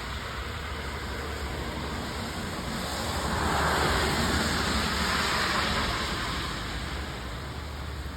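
A car passing by: its tyre and road noise swells about three seconds in, peaks around four seconds, and fades away by about seven seconds.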